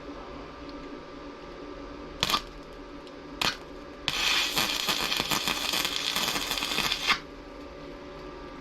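Stick welder striking an arc: two brief crackles, then about three seconds of continuous sizzling crackle as a small weld is laid, cut off abruptly.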